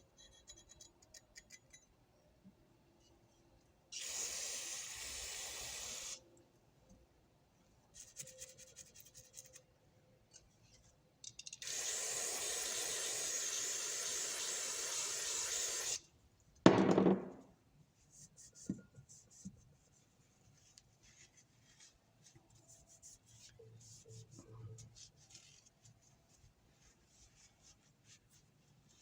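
Two steady hissing sprays, about two and four seconds long, blasting old dried grease and buffing compound out of the inside of a ratchet head, followed right after by one loud knock. Light rubbing and small taps of the metal parts fill the rest.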